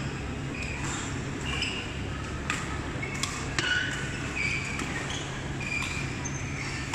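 Badminton hall ambience: a few sharp racket strikes on shuttlecocks around the middle, short high squeaks of shoes on the court mats, and a steady low hum of the hall.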